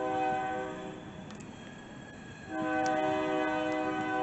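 Freight locomotive's air horn sounding a chord of several notes: a short blast of about a second, then after a pause of a second and a half, a long blast that is still going at the end, over a low train rumble.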